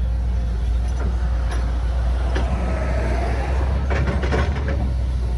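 Heavy construction machinery engine running steadily with a deep rumble, with a few knocks and clanks, most of them about four seconds in.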